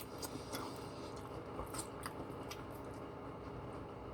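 A person chewing a mouthful of poutine: faint wet mouth clicks and smacks, a handful scattered through the quiet.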